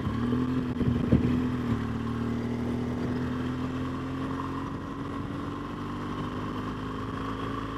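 BMW R1200GS flat-twin motorcycle engine running on the move, its pitch rising slowly as the bike picks up speed. A brief knock about a second in.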